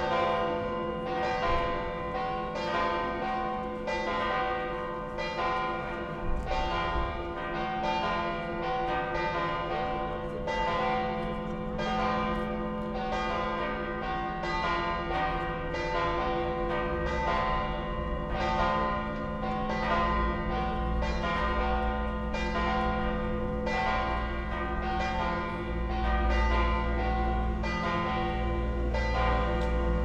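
Bells of St. Mary's Cathedral (the Dome Church) in Tallinn pealing: several bells struck one after another in a steady stream, roughly a stroke every half to three-quarters of a second, each ringing on under the next.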